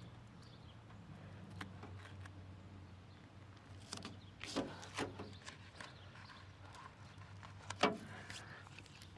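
Scattered light knocks and taps from hands working parts and material into place, the loudest one near the end, over a steady low hum.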